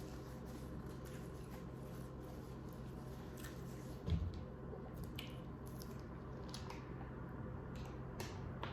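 A person chewing a mouthful of burger close to the microphone, with soft wet squishes and small clicks of eating. There is a low thump about four seconds in, and a steady low hum underneath.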